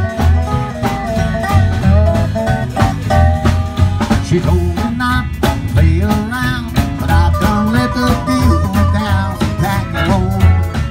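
Honky-tonk country band playing, with plucked guitar lines over a steady bass beat.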